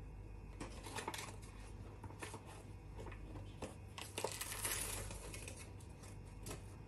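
A spoon scraping and tapping inside a plastic drink-mix pouch, the pouch crinkling, as Tang powder is scooped out and tipped into a glass of water. Faint scattered clicks throughout, with a short rustling hiss about four seconds in.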